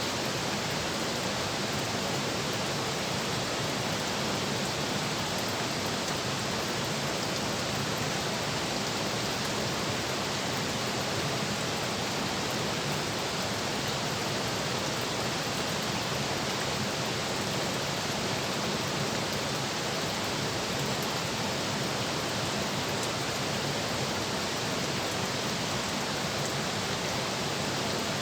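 Steady, unchanging rush of water noise.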